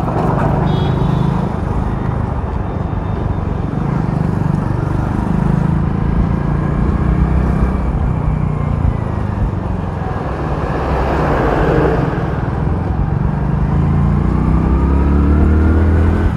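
Hero Splendor's single-cylinder engine running as the motorcycle is ridden through traffic, its pitch shifting with the throttle and climbing over the last couple of seconds as it accelerates.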